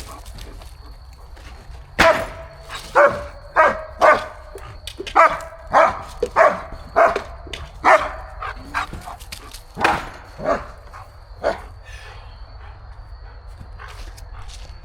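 A dog barking: about a dozen short barks in an uneven series that starts a couple of seconds in and stops near the end.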